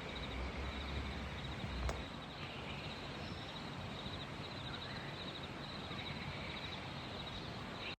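Outdoor evening ambience with a faint, steady, rhythmic high chirping of insects, a brief low rumble in the first two seconds and a single click near two seconds.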